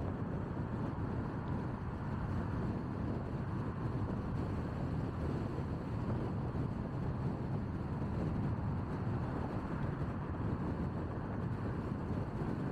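Steady road noise of a car driving at speed on an expressway: an even, low rumble of tyres and wind with no sudden events.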